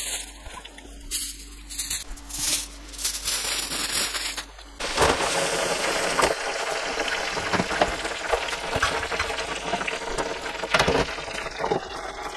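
Chips frying in an electric deep-fat fryer: the hot oil sizzling steadily, starting suddenly about five seconds in. Before it, a few short clicks and knocks of handling.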